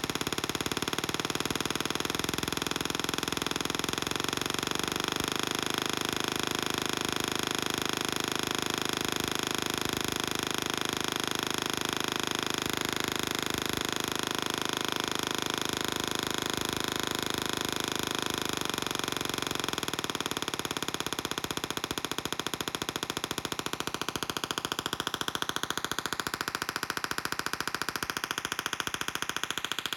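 Tesla coil discharging with a continuous electric buzz, made of very rapid pulses. Its pitch shifts in steps early on and glides upward over the last several seconds.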